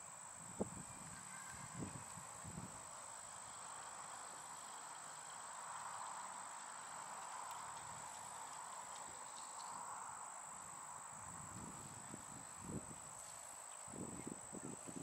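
Faint outdoor insect chorus: a steady high trill that runs on unbroken, with a softer hiss around it that swells and fades in the middle. A few soft low thumps are heard, bunched near the end.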